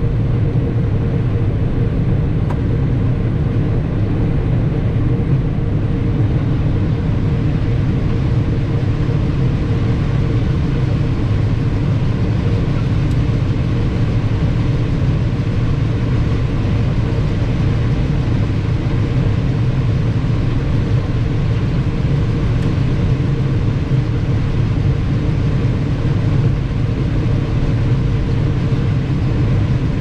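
Farm harvest machinery running steadily under load: a constant low engine rumble with a steady hum.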